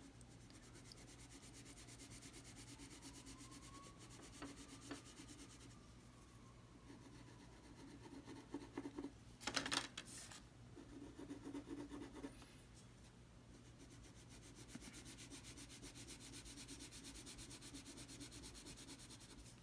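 Faint crayon rubbing on paper in quick back-and-forth colouring strokes, with a couple of louder, brief scrapes about halfway through.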